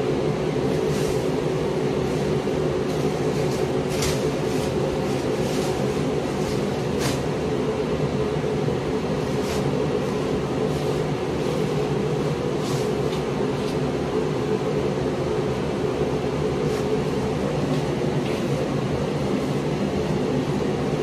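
Steady machine drone, like a ventilation blower, running without change, with a few brief light crackles scattered through it.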